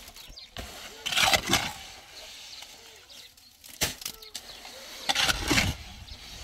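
Shovel scraping through wet concrete in a wheelbarrow, twice, with a sharp knock between the two scrapes.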